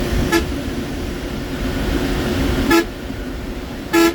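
Leyland 1616 Super diesel engine running steadily in top gear with a steady turbo whistle, while the horn sounds three short toots, the last one the longest and loudest.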